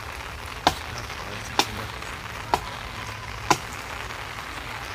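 Chopping at wood with a hand blade: four sharp strikes, evenly spaced about once a second, over a steady background hiss.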